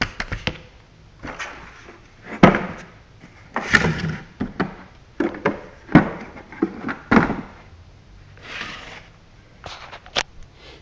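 Handling noise from a plastic cordless drill: irregular knocks and clatters as it is picked up, moved about and set down on cardboard, with a couple of short rustling scrapes.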